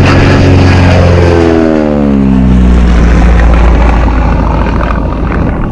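Propeller aircraft flying past: a loud engine drone whose pitch falls steadily about a second and a half in as it passes, leaving a low rumble that fades near the end.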